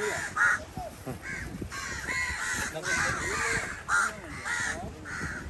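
Several crows cawing repeatedly, short harsh calls following one another and overlapping.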